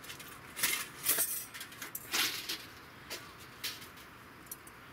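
Rustling of a fabric storage bag as a folding metal frame is pulled out of it, followed by a few light metal clicks as the frame is opened out.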